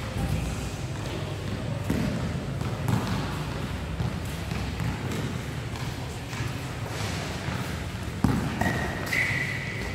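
Basketball thuds and bounces on a hard indoor court during play, with a steady low hum of the hall underneath. A held high tone comes in near the end.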